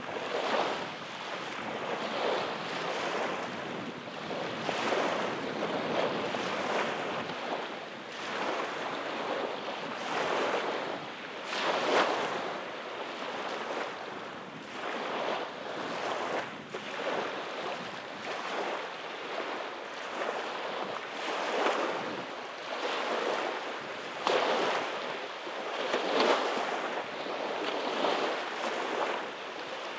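Small waves breaking and washing up a sandy beach: a rushing surf that swells and fades every couple of seconds, with a few louder breaks among them.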